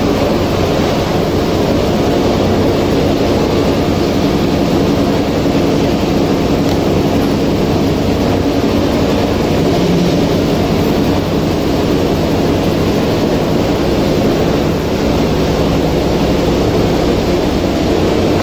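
Steady din of factory machinery running: a continuous low hum under an even rushing noise, with no breaks or distinct impacts.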